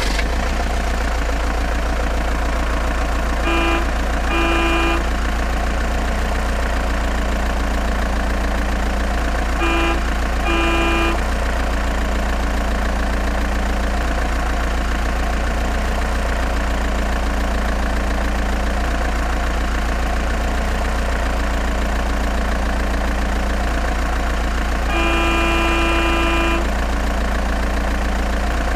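Remote-control toy dump truck's electronic sound effects: a steady simulated idling engine, with a double horn toot about four seconds in, another about ten seconds in, and a longer horn toot near the end.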